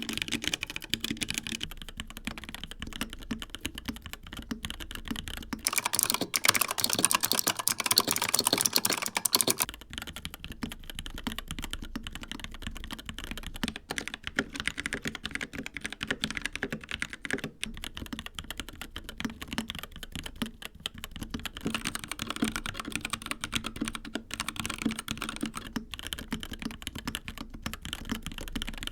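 Fast typing on a series of mechanical keyboards, several seconds each, with dense clacking keystrokes throughout. The switches move from linear HyperX Reds to clicky Razer Purple optical switches, then Gateron Red linears, then Kailh Box Blacks. The typing turns louder and sharper about six seconds in for a few seconds, then settles back.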